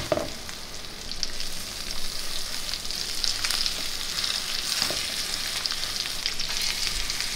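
Snook fillets frying in hot avocado oil and butter in a pan: a steady sizzle with small crackles, swelling about a second or two in as more fillets are laid into the fat.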